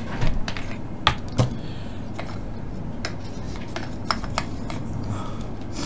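Light clicks and clinks of a toothbrush and a small bottle of cleaning alcohol being handled on a workbench, the bottle's cap unscrewed and set down. A few sharp clicks come in the first second and a half, then fainter, sparser ones, over a low steady hum.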